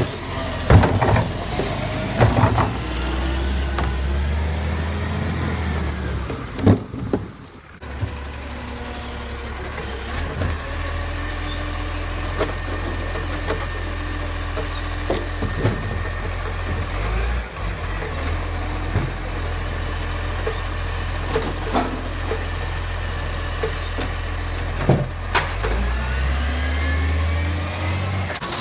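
Side-loading garbage trucks' diesel engines running while the automated lifting arm raises and empties wheelie bins, with whining hydraulics and scattered clunks from the arm and bin. Near the end the engine revs up as the truck moves off.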